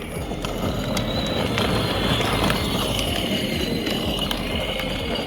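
Kids' Power Wheels ride-on Jeep driving, its plastic wheels rolling over the ground with the electric drive motors running on a 20-volt battery.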